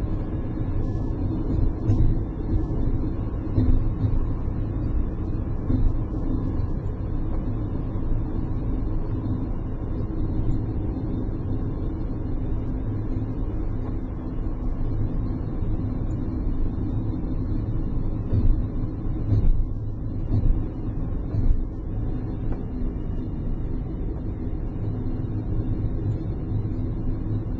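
Steady engine and tyre rumble of a car driving, heard from inside the cabin, with a few brief louder bumps.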